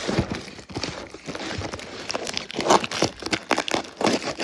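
Cardboard shipping package being opened by hand: loose packing tape pulled away and packing material crinkling, in irregular rustles, rips and small knocks.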